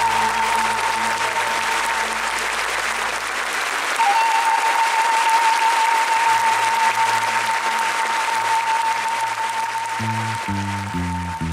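An audience applauding steadily over music. A single tone is held through most of it, and a bass line stepping from note to note comes in near the end.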